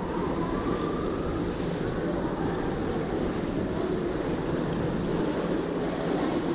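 Steady low rushing din of an indoor swimming pool hall, with faint distant voices blended into it.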